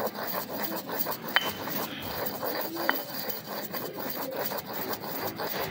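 Stone pestle grinding black cardamom seeds in a stone mortar (kharal): a continuous gritty rubbing and scraping of stone on stone and crushed seed, with a couple of sharper clicks of the pestle against the bowl.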